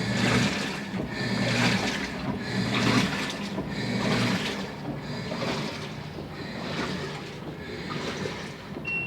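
LG washing machine drum turning back and forth in a wash, water sloshing in rhythmic surges about every second and a half, with a low motor hum under each stroke for the first few seconds. The owner takes the background noise for abnormal and says it began after a descaling service.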